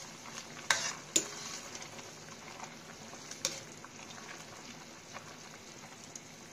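Metal ladle stirring a wok of simmering broth: a steady bubbling hiss with three light knocks of the ladle against the wok, two about a second in and one past three seconds in.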